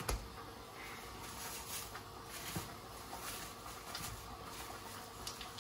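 Faint rustling and crinkling of cling film and a plastic bag being handled, in several soft brief rustles.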